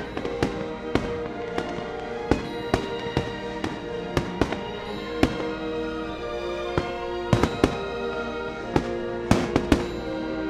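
Fireworks going off: many sharp bangs at irregular intervals, several in quick succession near the end, over music with long held notes.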